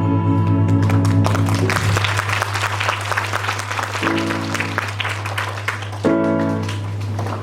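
An audience clapping as a keyboard plays the closing chords of a song. The clapping builds about a second and a half in and runs on under the held chords.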